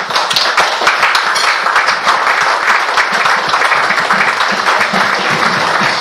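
Audience applauding, breaking out suddenly at once and carrying on loud and steady.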